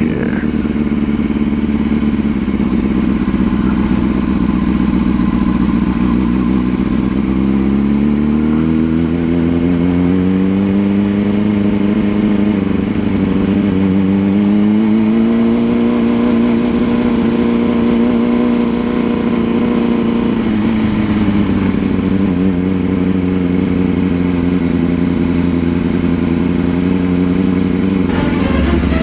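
Honda CBR600RR inline-four engine running under way: its pitch climbs as the bike accelerates about a quarter of the way in, dips briefly at a gear change, climbs again, holds steady, then drops as the throttle eases off a little past the middle and settles.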